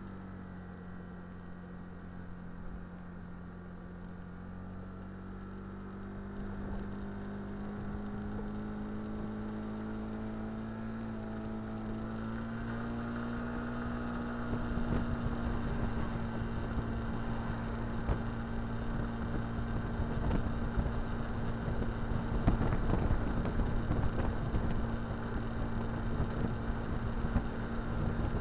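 Kymco Dink Street scooter engine running at a steady cruising speed, its pitch stepping up slightly about halfway through. A rush of wind and road noise grows louder over the second half.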